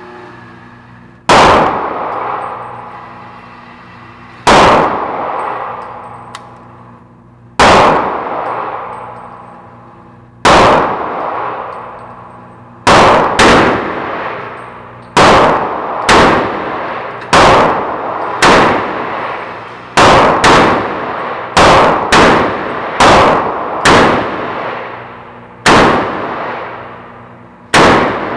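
A string of gunshots, about nineteen, each followed by a long echoing ring-out in an indoor firing range. The shots come from a Taurus 8-shot .22 Magnum revolver, with more shots than one cylinder holds, so some come from other lanes. They fall about three seconds apart at first, then closer together, sometimes two within half a second.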